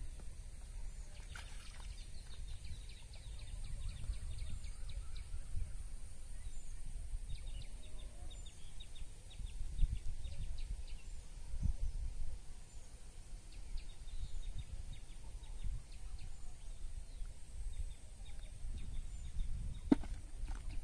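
Open-air ambience: a fluctuating low rumble of wind on the microphone, with small birds chirping and trilling now and then. A single sharp tap near the end.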